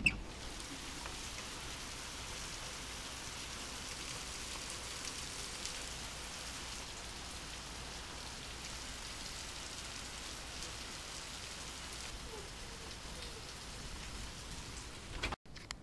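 Steady rain falling, an even hiss that cuts off suddenly near the end.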